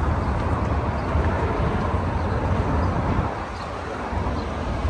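Busy city street ambience: steady road-traffic noise with a strong low rumble, which eases briefly about three seconds in before picking up again.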